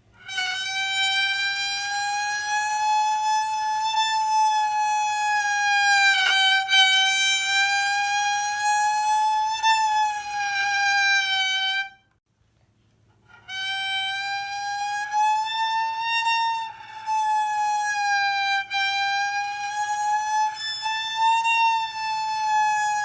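Violin playing one long bowed note that slowly slides up and down in pitch, imitating a police car siren's wail. It comes in two long phrases with a short break about twelve seconds in.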